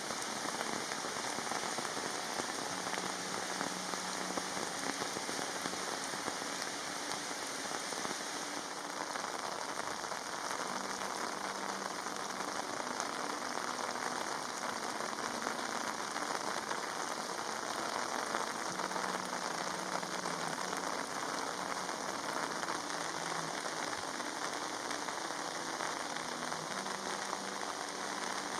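Monsoon rain falling steadily, a dense even patter of raindrops.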